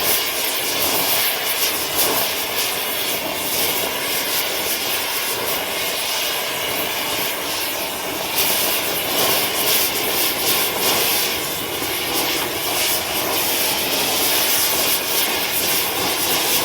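Oxygen-acetylene torch with a rosebud heating tip burning steadily, a continuous rushing flame noise with fine crackle, as it scorches yellow pine to bring out the grain.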